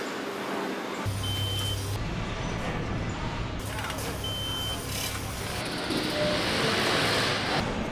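Motorcycle assembly plant floor noise: a steady machinery hum with clatter that changes abruptly several times, and two short high beeps about three seconds apart.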